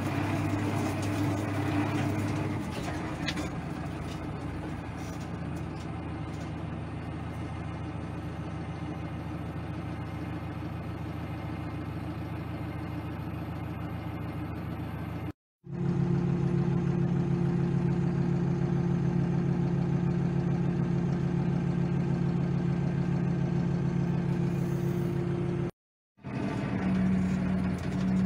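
Farm tractor's diesel engine running steadily, heard from inside the cab. The sound cuts out completely twice, briefly, about 15 and 26 seconds in, and after the first break the engine note is louder and steadier.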